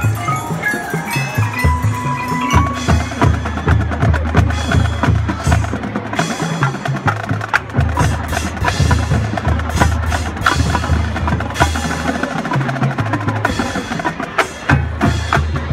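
Marching band playing a jazz show tune, with a dense stream of drum and mallet-percussion strokes over steady low notes.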